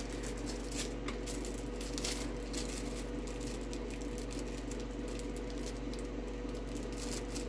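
A few faint clicks and taps as a small metal coin in plastic packaging is picked up and handled, over a steady low electrical hum.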